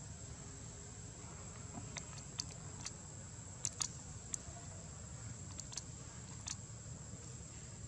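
A steady, high-pitched insect drone over quiet outdoor background noise, with a few faint, light clicks scattered through the middle.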